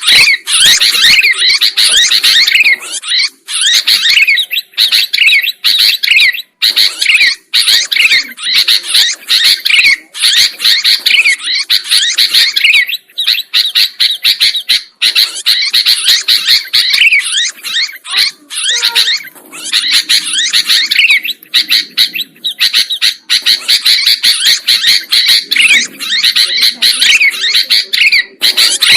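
Sooty-headed bulbuls (kutilang) chattering and singing without a break: a dense, loud stream of quick, bright chirps with only brief gaps.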